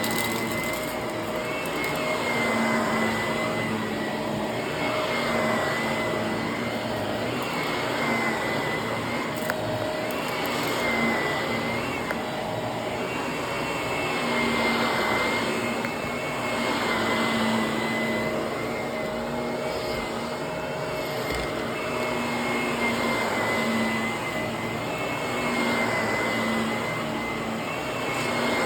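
Vacuum cleaner running on carpet, its motor holding a steady high whine over a low hum, the noise swelling and easing every two to three seconds as it is pushed back and forth.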